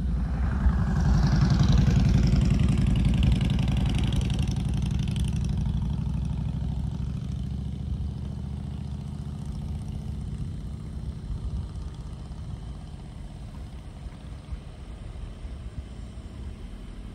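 Engine noise of a vehicle passing close by, loudest about two seconds in and then fading away slowly.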